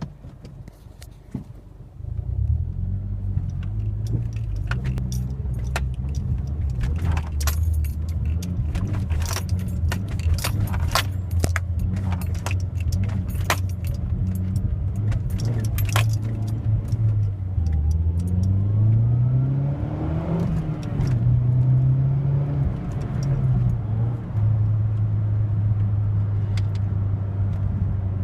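Mazdaspeed3's turbocharged 2.3-litre four-cylinder catches about two seconds in and runs, with a jingle of keys through the first half. Around two-thirds of the way through, the engine note climbs and drops twice before settling back to a steady idle. The owner suspects this uneven running is a misfire or a fuel pump problem.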